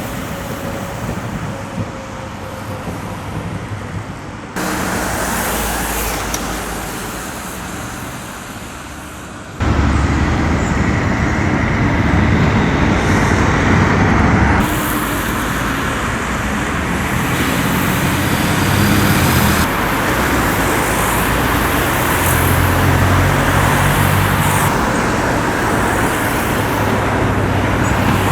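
TER and TGV trains running, heard as steady vehicle noise in a string of short recordings that cut abruptly to a new one about every five seconds.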